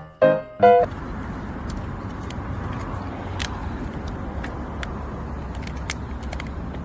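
A few piano notes end about a second in. Then steady outdoor background noise follows: a low rumble with a faint hiss and a few scattered light clicks.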